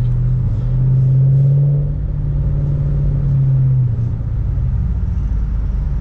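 Chrysler 300's engine and exhaust droning low and steady inside the cabin while driving slowly, with road noise under it. The drone climbs slightly about a second in and eases off at about four seconds as the car slows.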